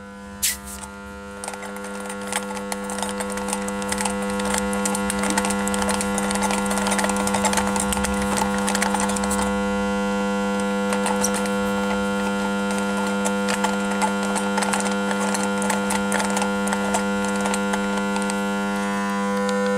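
A steady electrical mains-type hum, with many small clicks and knocks of gloved hands handling a compression tester's hose and fittings on the engine.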